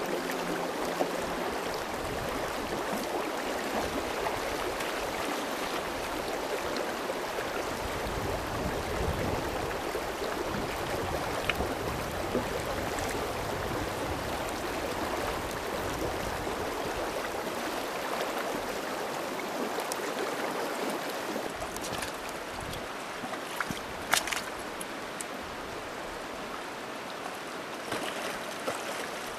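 Shallow river running steadily over stones, with a short sharp tick near the end.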